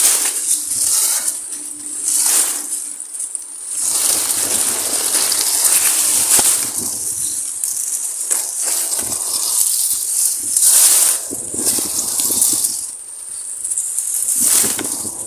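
Tall grass and reeds rustling and brushing right against the camera as someone pushes through them, in loud, uneven swishes.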